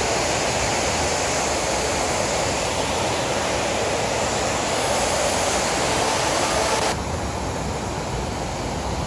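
Man-made rock waterfall pouring into a lagoon: a steady rush of falling water, turning duller and a little quieter about seven seconds in.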